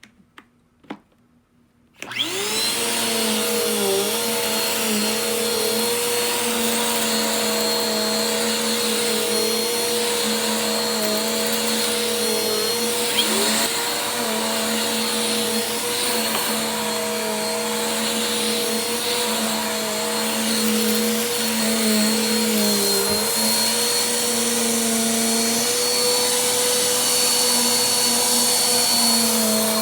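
Vacuum cleaner switched on about two seconds in, then running steadily with a motor whine whose pitch dips briefly now and then as the load on it changes during vacuuming.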